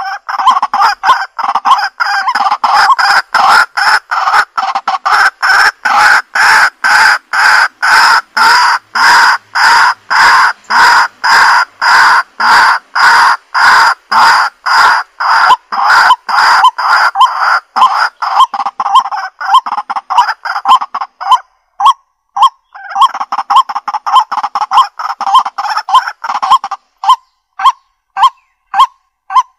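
Loud honking calls repeated rapidly and evenly, about two a second, with a short break about 21 seconds in. Near the end the calls come shorter and more sparsely.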